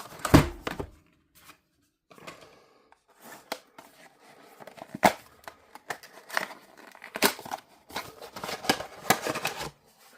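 Plastic packaging being torn and crinkled while a metal clamp and weighted base are unpacked, with scattered handling clicks. A heavy thud comes about half a second in, the loudest sound.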